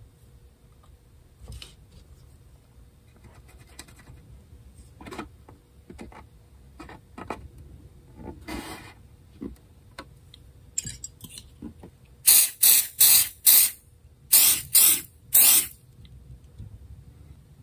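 Pump-spray bottle of CA glue accelerator sprayed in seven short hisses, four then three, to set superglue in a mandolin top crack. Before that, faint scrapes and taps of fingers working on the wood.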